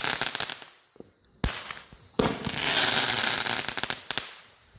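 Fireworks going off: a crackling tail fades out, then a sharp bang comes about a second and a half in. From about two seconds in there is a long, loud crackling hiss that dies away near the end.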